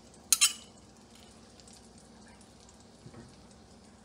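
Two quick clinks of cutlery against a plate about half a second in, then only a faint, steady hiss.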